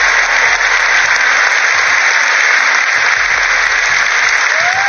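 Congregation applauding, a steady sustained round of clapping.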